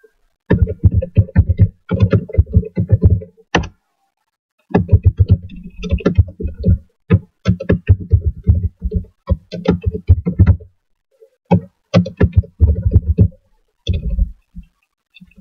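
Computer keyboard typing in quick runs of keystrokes, each a sharp click with a heavy low thud, broken by short pauses.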